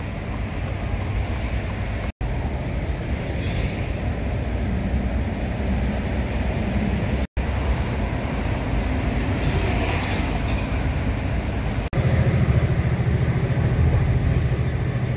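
Lorry cab interior while driving on a busy urban motorway: the truck's diesel engine humming under steady road and tyre noise. The sound cuts out briefly three times, and from about twelve seconds in the engine drone is louder and steadier.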